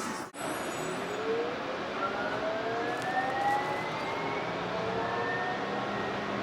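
Light rail vehicle's electric traction motors whining as the train accelerates, several tones rising slowly in pitch over steady running noise.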